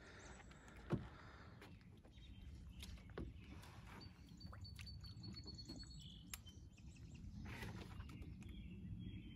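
Quiet outdoor ambience with a bird calling high, thin notes in the middle, and a single sharp click about a second in.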